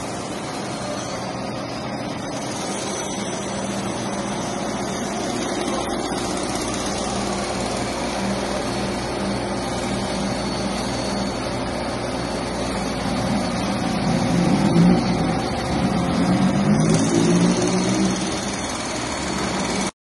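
Kivertron LA-60T automatic heated washer running: a steady mechanical hum of its motor and pump, louder for a few seconds from about fourteen seconds in.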